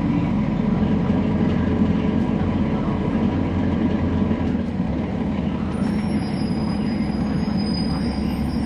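Inside the rear of a 2011 NABI 40-SFW transit bus: its Cummins ISL9 inline-six diesel and ZF Ecolife six-speed automatic transmission running with a steady low rumble. Faint high thin tones come in about six seconds in.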